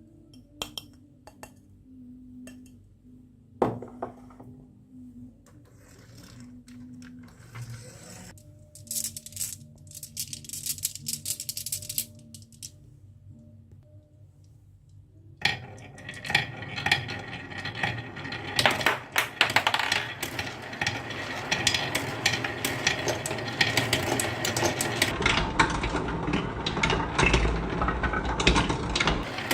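Marbles clicking down a wooden marble run, a few scattered clicks at first, then about halfway through a dense, continuous clattering rattle as many marbles pour down the tracks together.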